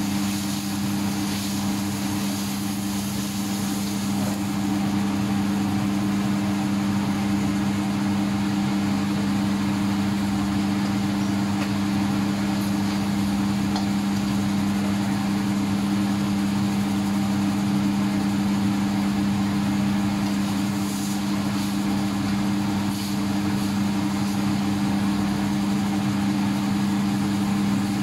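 Steady low mechanical hum of kitchen machinery running under a wok of simmering broth. A metal ladle scrapes around the wok in the first few seconds, with a couple of light clinks later.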